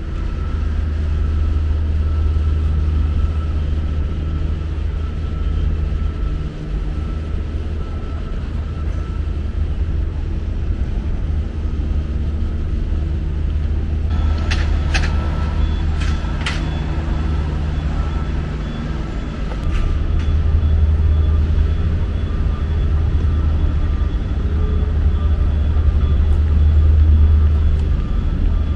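City street traffic: a steady low rumble of passing road vehicles, with a few sharp clicks about halfway through.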